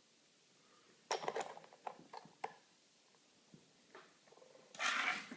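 Padlock and lock picks being handled: a quick run of small metallic clicks and rattles about a second in, a couple of faint ticks, then a brief scraping rustle near the end.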